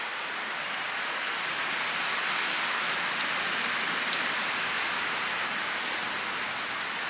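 Wind gusting through the tops of pine trees: a steady rushing hiss that swells slightly in the middle and then eases.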